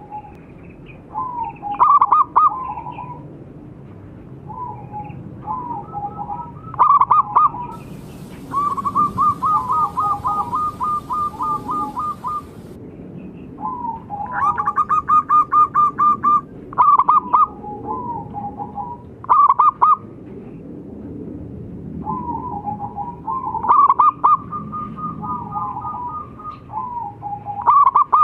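Several zebra doves (perkutut) calling: short loud cooing notes, warbling phrases and long quick rolling trills held at one pitch, with some calls overlapping.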